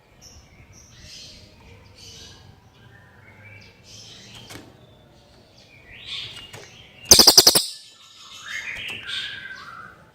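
Cililin songbird calling with clear, short chirping and whistled phrases. About seven seconds in comes a loud, rapid run of about eight sharp clicks.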